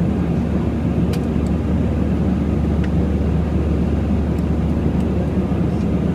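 Steady cabin noise of an airliner in cruise, engine and airflow sound heaviest in the low range, with a couple of faint ticks.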